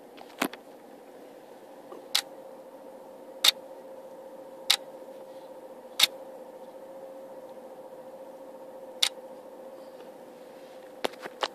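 Camera shutter clicking eight times at irregular intervals, each fired by a lightning trigger that trips on a lightning flash. A steady low hum runs underneath.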